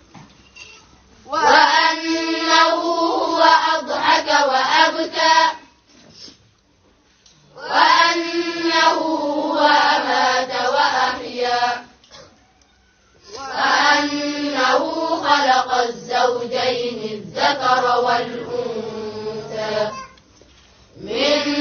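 A group of voices chanting Quranic recitation together in three long drawn-out phrases, each followed by a short pause.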